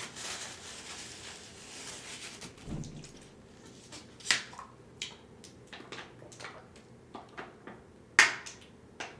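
Eating sounds: chewing and wet mouth smacking, with a string of short sharp clicks, the loudest about four and eight seconds in.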